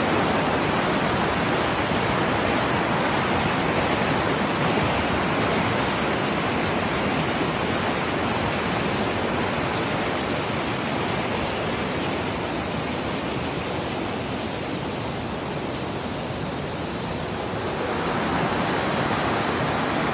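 Fast river rapids rushing below a plank footbridge, a steady loud roar of white water. It eases a little about two-thirds of the way through and swells again near the end.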